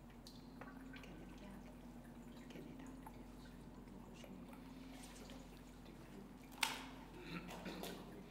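A steady low room hum with faint scattered clicks. One sharp, much louder click comes about six and a half seconds in, followed by a few smaller ones.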